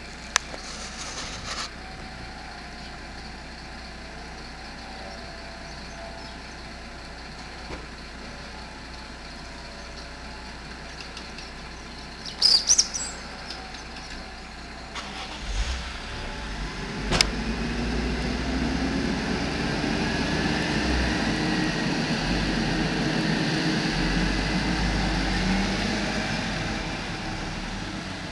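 Background street noise, then a motor vehicle engine that grows louder from about sixteen seconds in, running with its pitch slowly rising and then falling, and fading slightly near the end. A couple of short, sharp, high squeaks come about twelve seconds in.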